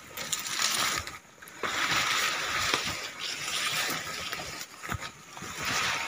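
Leaves and stems rustling and swishing as someone pushes through dense undergrowth, in about four separate brushing passes with small cracks and snaps among them.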